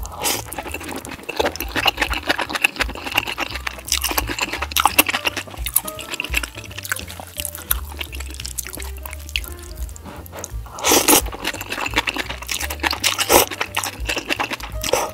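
Close-up wet slurping and chewing of noodles in a spicy soup, with several loud slurps among dense chewing clicks, over background music.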